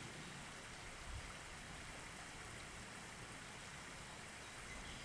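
Steady faint hiss of background noise, with one soft low thump about a second in.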